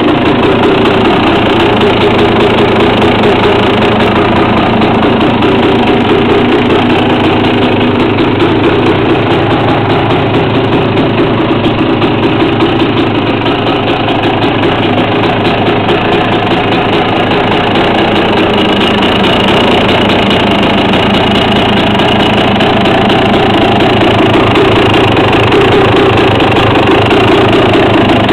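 1995 Yamaha YZ250's 250 cc two-stroke single-cylinder engine idling steadily through its PST exhaust pipe and Answer Equalizer silencer, a fast, even run of firing pulses.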